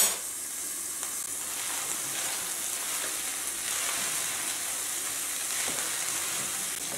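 Steady sizzling hiss of food frying on the stove, with soft scraping of a wooden spoon stirring cooked rice and marinated pepper in an enamel pot.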